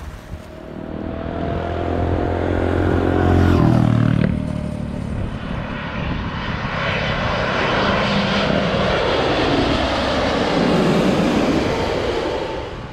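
Jet airliners flying low overhead on landing approach. First comes an engine tone with many overtones sliding slowly down in pitch. After an abrupt change about four seconds in, a Boeing 787-8 Dreamliner's jet noise follows, loud and rushing, with a slowly sweeping hiss as it passes over.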